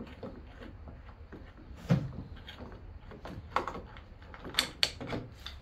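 Knocks and clicks from a cordless electric chainsaw being handled by hand, its side-cover fittings being worked. There is one solid knock about two seconds in, then a quick run of sharp clicks and taps near the end.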